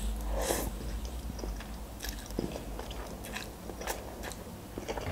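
Close-miked eating of instant noodles: slurping a forkful, then soft wet chewing with small mouth clicks.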